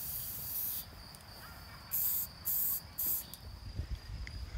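Aerosol spray-paint can hissing in bursts: one long spray that stops just under a second in, then three short sprays about two to three seconds in.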